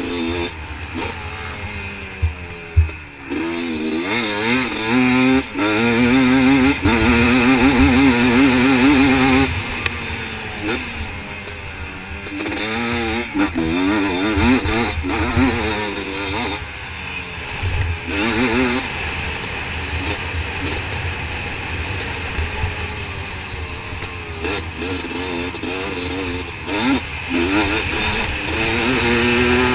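Motocross dirt bike engine revving hard, its pitch climbing and dropping again and again through acceleration and gear changes.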